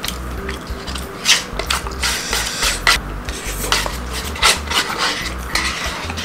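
Plastic spoon scraping around the inside of a nearly empty paper food cup, gathering the last of the rice in a series of irregular rasping strokes.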